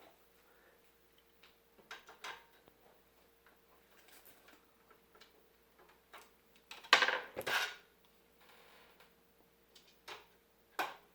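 Scattered clicks and knocks of a video card and computer case parts being handled and pushed into place, with the loudest pair of clatters about seven seconds in and a sharp knock near the end. A faint steady hum runs underneath.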